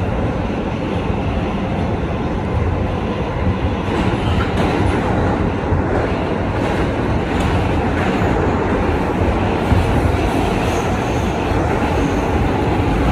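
2023 Kawasaki R211A subway train running at speed: a steady rumble of wheels on rail, with a few faint clicks.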